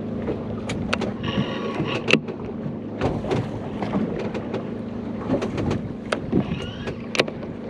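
A boat on open water: a steady low hum, with water sloshing and scattered sharp clicks and knocks.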